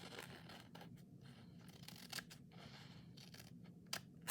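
Scissors cutting paper: faint scraping with a few sharp snips, the loudest near the end.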